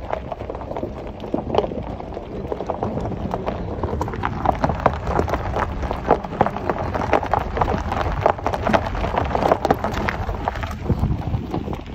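Car tyre rolling over a loose gravel road: a continuous crunch, with many stones clicking and popping under the wheel.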